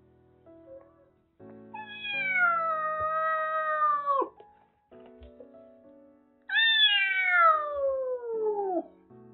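A kitten giving two long, loud meows a couple of seconds apart, each drawn out and falling in pitch toward its end. Soft background music runs underneath.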